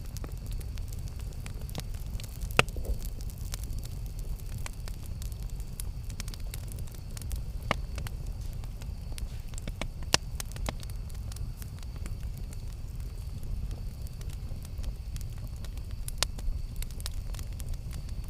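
Campfire burning with a steady low rush and frequent sharp crackles and pops, a few louder pops standing out about 2.5, 8 and 10 seconds in.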